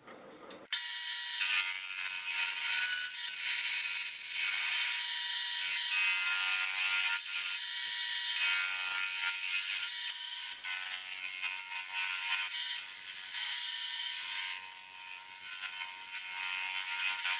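Grizzly G0750G metal lathe starting up about a second in and turning a 1-inch steel rebar rod, with a steady whine. A shrill high screech from the cutting tool on the steel comes and goes in stretches of a second or two.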